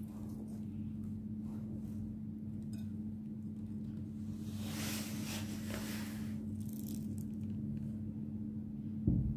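Steady low hum, with a brief rustling hiss about five seconds in and a single dull thump near the end.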